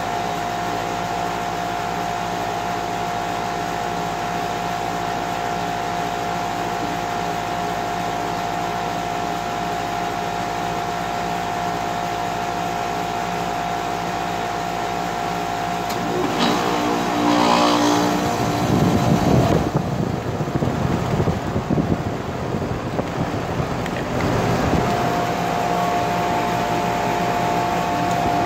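Goodman 5-ton heat pump outdoor unit running with a steady hum. About two-thirds of the way through there is a click and tones falling in pitch as the compressor winds down. A loud whooshing rush of refrigerant through the reversing valve follows for several seconds, and then a steady hum resumes.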